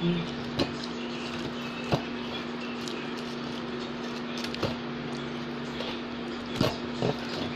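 A person chewing food with the mouth closed, giving about five sharp, scattered mouth clicks and smacks over a steady low hum.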